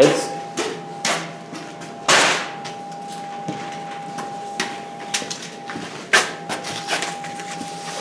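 Scattered knocks and clicks of handling noise as the camera is carried and tools are picked up and set down, with a louder rustle about two seconds in. A faint steady whine runs underneath.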